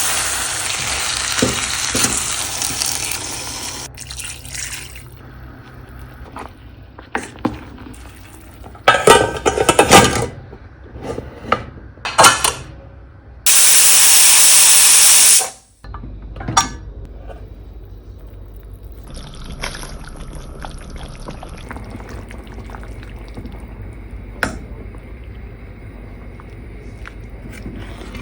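Pot cooking on the stove: a few seconds of sizzling in the pan, then scattered clinks and scrapes of a utensil against the pot. About two seconds of liquid is poured in, stopping abruptly, followed by a steady low hum under a faint hiss.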